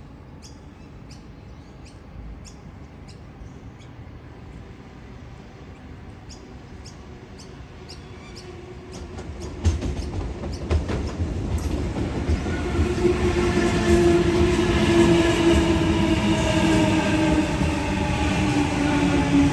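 Electric suburban train approaching and running in: a run of sharp clicks from the wheels on the track, then about ten seconds in it grows much louder with a thump. After that comes a steady rumble and a whine that falls slowly in pitch as the train slows.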